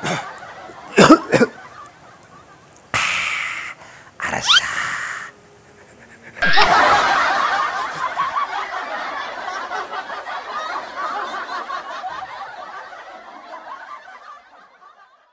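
People laughing heartily, starting loudly about six and a half seconds in and slowly fading out toward the end. Before that come two short, breathy, noisy bursts.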